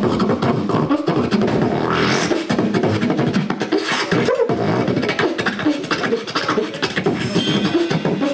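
Solo beatboxing into a handheld microphone: a man making a fast, unbroken run of drum-like beats with his mouth, picked up close and amplified.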